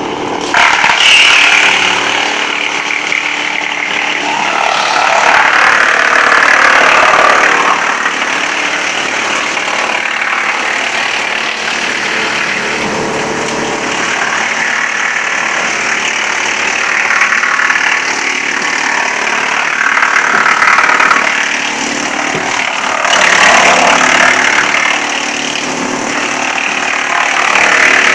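Wood chipper running steadily, with louder rasping stretches of a second or two, several times over, as wood is fed in and chipped.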